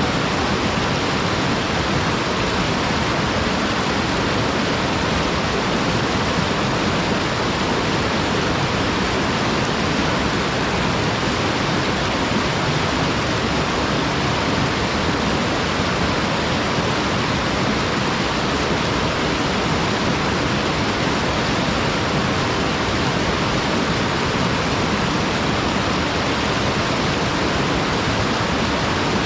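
Waterfall sliding straight down a flat, unobstructed rock slope: a steady, even rush of falling water.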